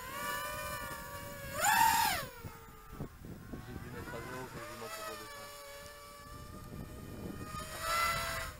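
Small multirotor drone's electric motors and three-blade propellers whining in flight, the pitch wavering with the throttle. It climbs sharply into a loud, rising whine about two seconds in, and swells again near the end.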